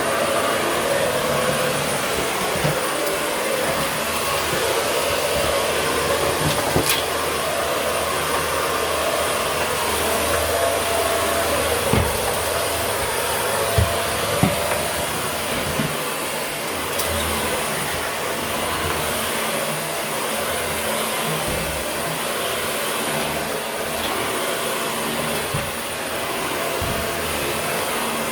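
Dyson vacuum cleaner running steadily over carpet, with a constant high whine. A few sharp clicks or knocks come about a third of the way in and again around the middle.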